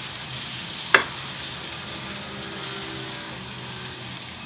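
Minced garlic sizzling steadily in hot oil in a wok while being stirred with a spatula, with a single sharp knock about a second in.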